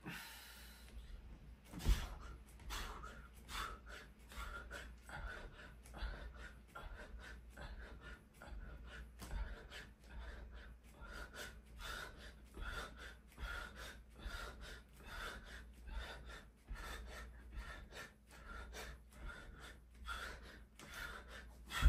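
A man breathing hard in a quick, steady rhythm, a sharp breath with each push-up through a set of push-ups.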